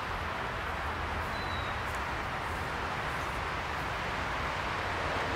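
Steady rushing background noise with a low rumble beneath it, and one faint short high chirp about a second in.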